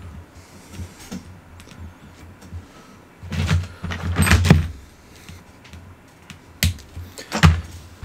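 Handling noise from working on the blaster's wiring and parts: scattered light clicks, a rustling clatter lasting about a second midway, and two sharp clicks near the end.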